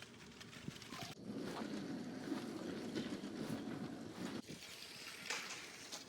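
LEGO train running along its plastic track, heard from on board: a steady rattle with fine clicking from the wheels and motor. The sound breaks off and starts again abruptly about a second in and again after four seconds.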